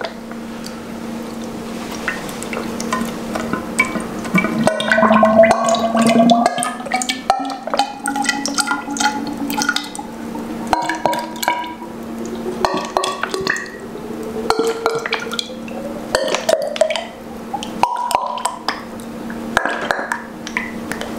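Fork oil glugging out of a plastic bottle into a motorcycle fork tube, each gulp of air into the bottle making a short gurgle. Under it, a hollow tone rises steadily in pitch as the tube fills.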